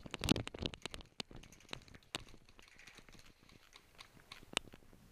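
Footsteps crunching on dry, gravelly dirt, quick and dense for about the first second, then a few scattered crunches and clicks.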